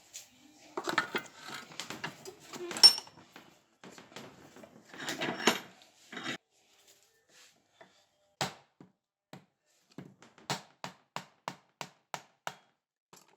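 Hand-tool work on a wooden handle: rough scraping and handling noises, then a run of about ten sharp taps in the second half, speeding up to about three a second.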